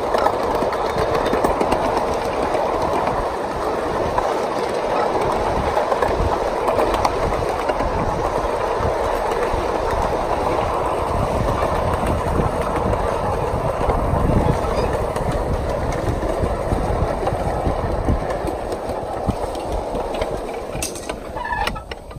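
A 1-inch-scale riding train's wheels rumbling and clattering along the track, heard from a riding car behind the locomotive. The rumble fades over the last couple of seconds as the train slows to a stop.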